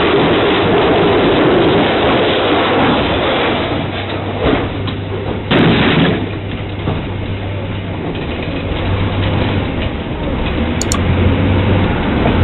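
Inside a moving bus: steady engine drone and road rumble, with a knock and then a louder thump about five and a half seconds in.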